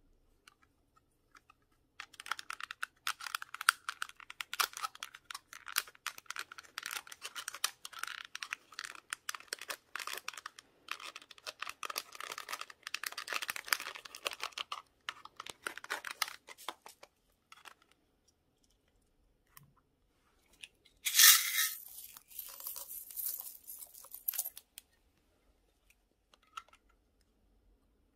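Plastic spatula scraping and crumbling a pressed powder blush out of its compact, a dense crackly scratching that goes on for about fifteen seconds. Later comes a shorter, louder scratchy burst lasting a few seconds.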